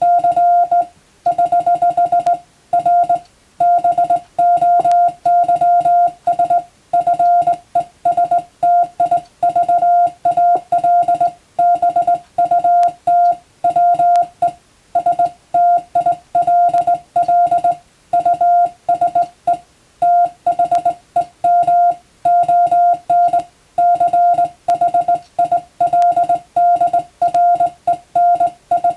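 Morse code (CW) beeping: one steady mid-pitched tone keyed on and off in dots and dashes, in a continuous stream of characters with short gaps between letters and words. It is English-text telegram code sent for receiving practice.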